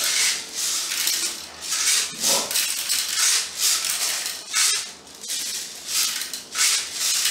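Plastic airsoft BBs rattling as they are shaken and poured from a bottle into a BB loader, in irregular bursts about once or twice a second.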